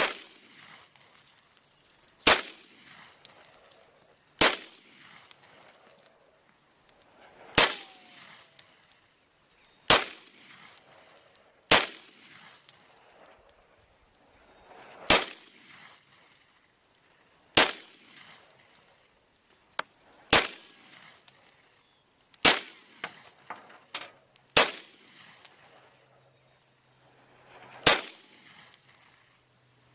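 Glock Model 40 10mm pistol firing slow, aimed single shots, about a dozen spaced two to three seconds apart, each shot trailing off in a brief echo.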